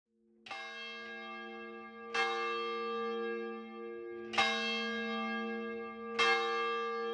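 Bell struck four times about two seconds apart, each stroke ringing on and slowly dying away, over a steady held low chord.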